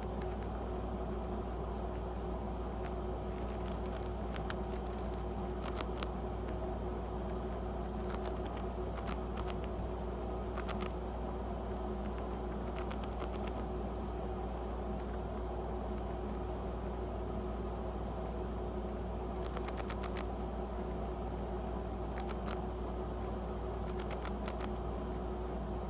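A pet rat nibbling and crunching a cracker: irregular clusters of small, crisp crunches with pauses between them, over a steady low background hum.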